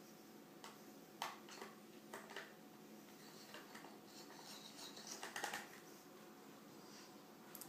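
Faint, scattered clicks and scrapes of a small screwdriver turning screws into a laptop's graphics-card cooling assembly, with a small cluster about five seconds in.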